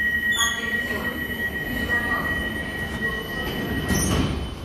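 Door-closing warning on a driverless metro train and its platform screen doors: a steady high beep held for about four seconds, with a short chime near the start. It stops as the doors shut about four seconds in, over a low station rumble.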